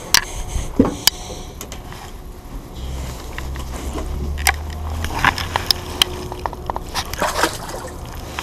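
Sharp knocks and scrapes of handling against a moored boat's gunwale and rope. Near the end come crackling splashes as a hooked mullet is grabbed by hand at the water's surface.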